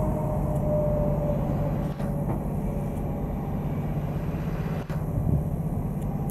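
Large soil stabilizer's diesel engine running steadily under load, with a thin steady whine over it for the first two seconds. The sound breaks briefly about two and five seconds in.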